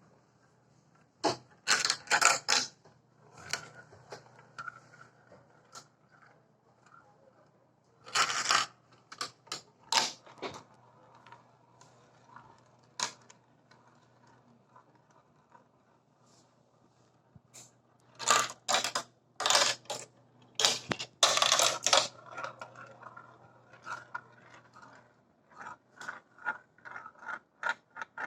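Marbles rolling and clattering through a Quercetti Skyrail plastic marble run: several bursts of rapid clicks and knocks as they hit track pieces and each other, with a quieter rolling rattle and scattered ticks in between.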